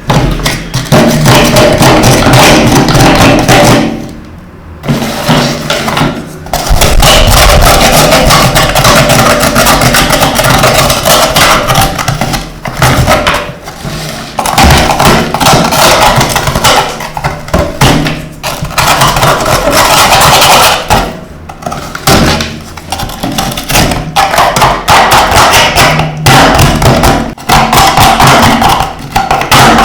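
Loud music that drops away briefly a few times.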